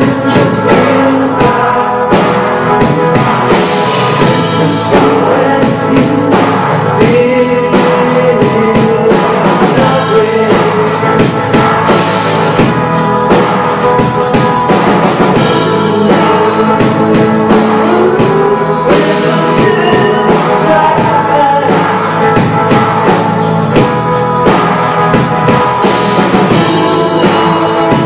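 Live rock band playing loud: electric guitars, bass, keyboard and drums, with a voice singing over them.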